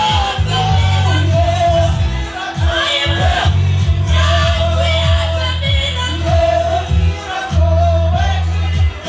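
Church worship music: voices singing a melody over loud, held bass notes.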